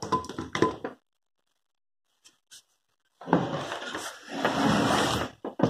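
Handling noise from a metal-bodied electric drill and its cord knocking and scraping as the drill is set down on a wooden floor. There is a short clatter at the start, a pause, then a longer rough scraping and rustling about three seconds in. The drill's motor is not running.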